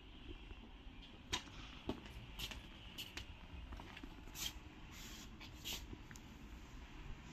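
Faint footsteps on a tiled floor, about two a second in two short runs, over a low steady rumble.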